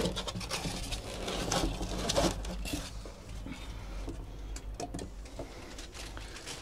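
Cardboard box and packing material being handled as items are repacked: irregular rustles and light knocks, a couple louder about two seconds in, over a steady low hum.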